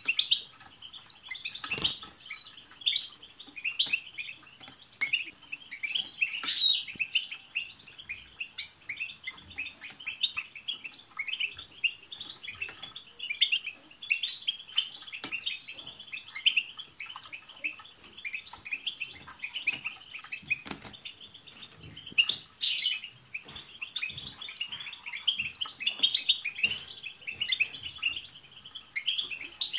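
A group of European goldfinches twittering and singing together: a dense, unbroken chatter of quick overlapping notes, with now and then a high, thin call standing out above it.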